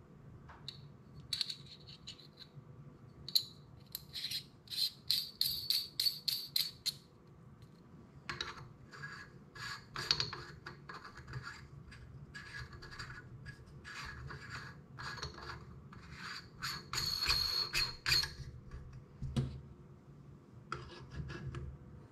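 Spacer ring being screwed by hand onto a scope-camera adapter: a few seconds in, a quick run of scratchy clicks from the threads, then rubbing and scraping as the adapter is slid back onto the rifle scope's eyepiece.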